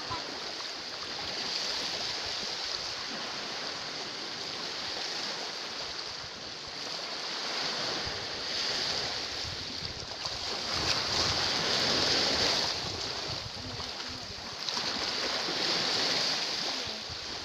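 Small sea waves washing over rocks at the water's edge, a steady wash that swells louder twice, around ten to twelve seconds in and again near the end.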